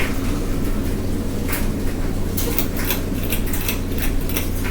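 Litex Builder ceiling fan coasting down just after being switched off from high, a steady low hum with scattered light clicks from the badly wobbling fan.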